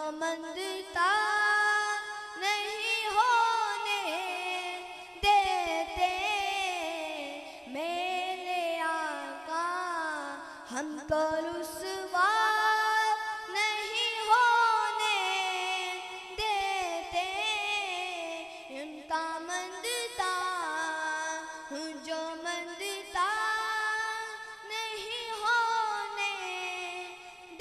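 A boy singing a naat, an Urdu devotional poem in praise of the Prophet, unaccompanied into a handheld microphone. He sings in long, high, ornamented phrases with short breaths between them.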